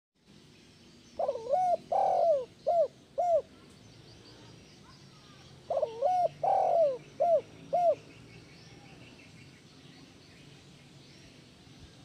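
Spotted dove (tekukur) cooing: two phrases of about five notes each, a few seconds apart, the third note of each the longest. Faint high chirps of other birds in the background.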